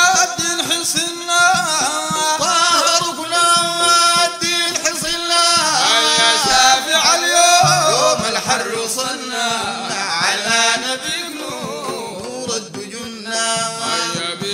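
A Sudanese madeeh, a religious praise song: a man singing over musical accompaniment.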